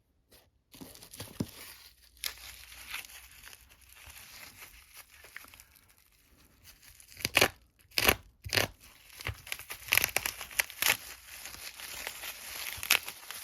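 Wrapping being crinkled and torn by hand as a wrapped padlock is unwrapped, a continuous crackling with sharp, louder crackles several times in the second half.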